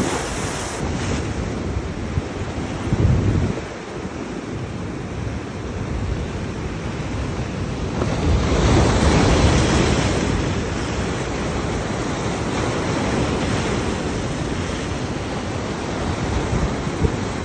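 Heavy ocean surf breaking and washing over the boulders of a rock seawall, a continuous rushing wash that swells loudest about eight to ten seconds in. Wind buffets the microphone, with a low rumbling gust about three seconds in.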